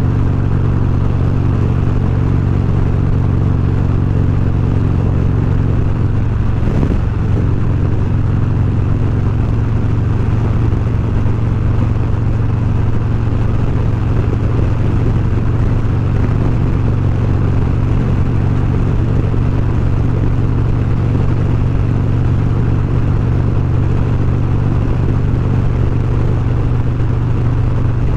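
Harley-Davidson Road Glide Special's V-twin engine running at a steady cruise, with road and wind noise, while the bike is ridden; a brief knock comes about seven seconds in.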